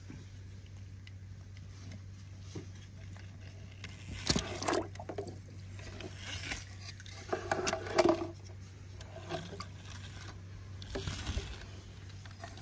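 Toy monster trucks being handled: short scrapes, clicks and knocks in a few scattered clusters, the busiest about a third and two thirds of the way through, over a steady low hum.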